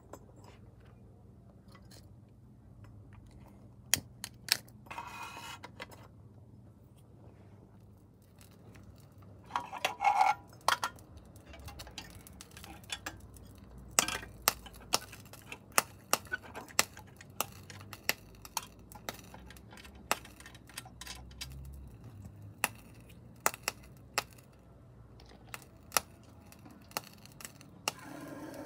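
Light metallic clicks and clinks as small tinplate Mamod toy steam traction engines are handled and set down, with two short scraping rushes about five and ten seconds in, over a faint low hum.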